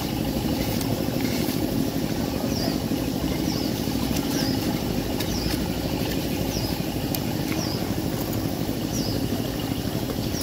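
A motor engine running steadily, with a short high falling chirp repeating about once a second over it.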